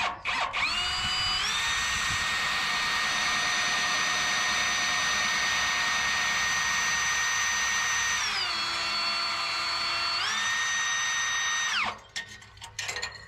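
Electric drill boring a pilot hole through the exhaust pipe metal, its motor whining steadily after a quick spin-up. About eight seconds in the whine drops in pitch for a couple of seconds as the bit loads up in the hard metal, then rises back, and the drill stops near the end.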